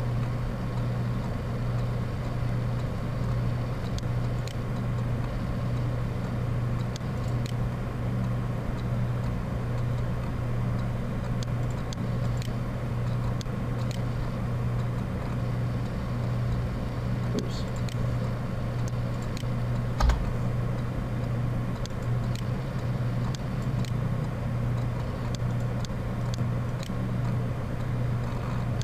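Steady low hum with scattered faint clicks of a computer mouse and keyboard, and one sharper click about twenty seconds in.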